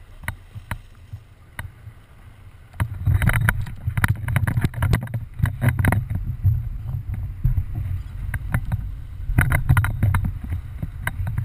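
Fishing boat at sea: a low rumble of wind and water on the hull, with many sharp knocks and slaps. It grows loud about three seconds in.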